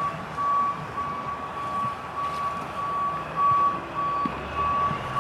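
Dump truck's back-up alarm beeping steadily, about one and a half beeps a second, as the truck reverses, over the low rumble of its engine.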